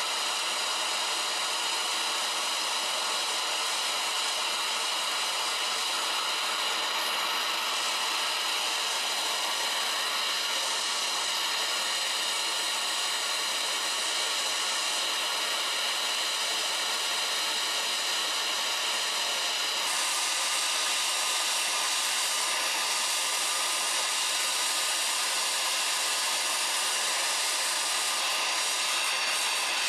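Handheld gas-canister torch burning with a steady hiss, its flame playing into a ceramic crucible to melt silver. The hiss gets a little louder about two-thirds of the way through.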